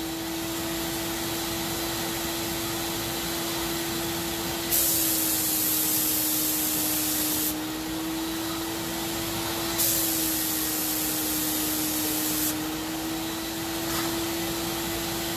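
Graco FinishPro 9.5 HVLP sprayer's turbine running with a steady whine, while the spray gun hisses as it sprays paint. The hiss comes twice, for about three seconds each time, starting about five and about ten seconds in.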